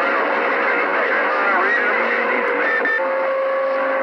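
CB radio receiver on a crowded skip channel: several distant stations talk over each other, garbled through static, with steady carrier whistles underneath. A new, higher whistle comes in about three seconds in.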